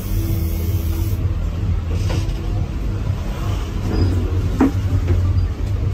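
Steady low droning hum, with a brief squeak about four and a half seconds in.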